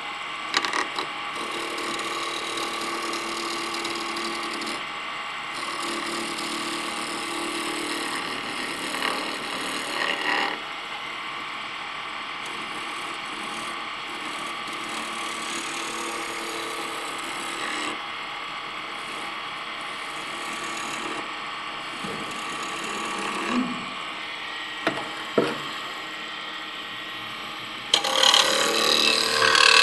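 Wood lathe running with a turning tool making a light back cut on a spinning wooden sphere: a steady whir with the scrape of the tool on the wood. A few clicks come late on, and the cutting gets louder near the end.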